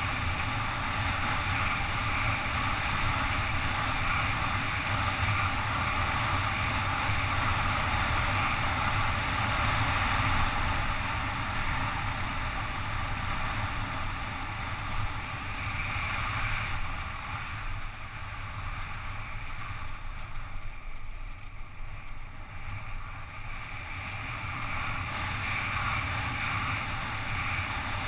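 Wind rushing and buffeting over a helmet-mounted action camera's microphone as a bicycle descends a mountain road at speed. The rush eases for several seconds after the middle, then picks up again near the end.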